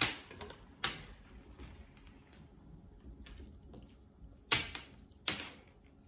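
A cat wand toy and its feather lure clicking and rattling against a plastic-covered glass tabletop as the cat bats at it. There are four short taps: one at the start, one about a second in, and a louder pair near the end.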